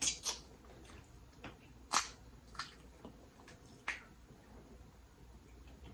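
Close-miked wet mouth sounds of eating by hand: a few sharp lip smacks and clicks between quieter chewing, the loudest about two seconds in.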